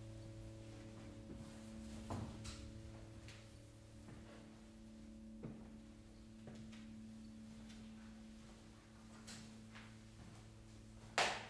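A quiet drone of several steady low tones from a sparse experimental ensemble piece, with scattered soft clicks and knocks. One sharper knock comes near the end.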